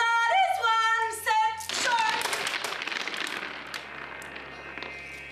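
A woman's wordless, high-pitched vocalizing in short gliding cries, then a sudden noisy burst about two seconds in that fades away over the next couple of seconds.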